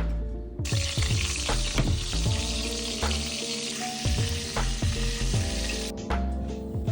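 Duck breast sizzling in a hot cast-iron skillet: a steady frying hiss that starts about half a second in and cuts off about a second before the end, with background music underneath.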